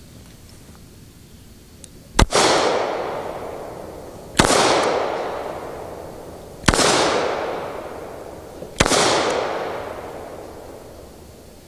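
Four revolver shots, slow and evenly spaced about two seconds apart, each followed by a long echo that fades away.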